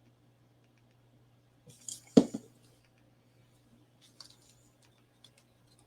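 Small clicks and taps of paper craft pieces and glue being handled on a tabletop, with one sharper knock about two seconds in and faint light ticks later, over a low steady hum.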